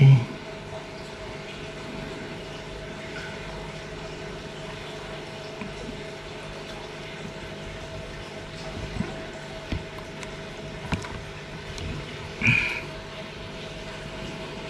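Scissors trimming the edge of an arowana's gill cover: a few faint clicks over a steady hum, with a thump right at the start and a short louder rustle near the end.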